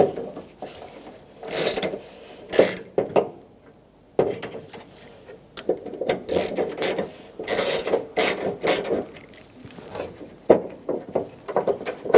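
Hand ratchet with a T20 Torx socket clicking in short runs of strokes as it backs out the door handle's mounting screws, with a brief pause partway through.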